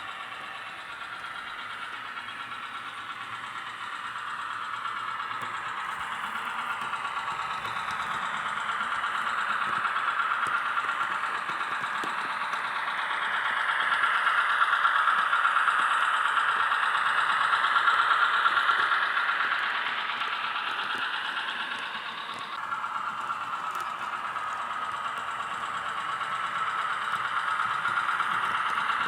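Sound decoder of a Roco HO-scale NS series 200/300 shunting locomotive model playing its diesel engine sound through the model's small speaker as it runs. It swells to its loudest in the middle and changes abruptly about three-quarters of the way through.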